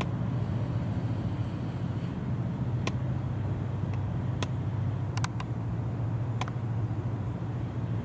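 Steady low drone of the diesel engines of a passing ferry and gravel carrier. A few short, sharp ticks sound between about three and six and a half seconds in.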